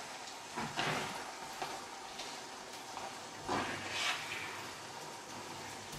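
A spoon stirring minced meat in a metal frying pan: a few short scrapes against the pan about a second in and again near four seconds, over a faint steady hiss.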